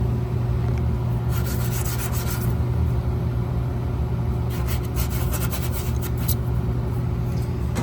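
Old Singer furnace running with a steady low hum, with two spells of rubbing and scraping noise over it, the first about a second in and the second near the middle.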